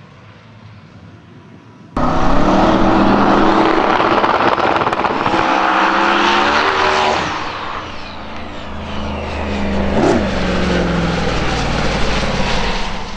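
Twin-turbo V8 Mustang drag car launching at full throttle and accelerating hard down the strip, the engine note climbing and stepping as it goes, with a dip about five seconds after launch and the car passing close by near the end. Before the launch, a couple of seconds of faint, distant engine sound.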